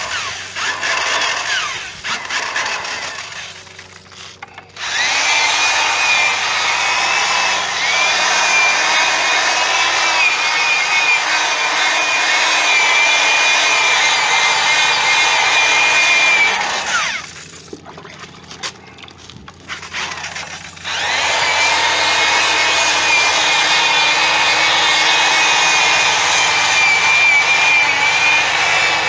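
Drill spinning a foam polishing pad on a plastic headlight lens, buffing in chrome polish. It runs steadily with a whine, stops for a few seconds a little past halfway, then starts again and runs to the end; the first few seconds hold quieter, uneven handling sounds.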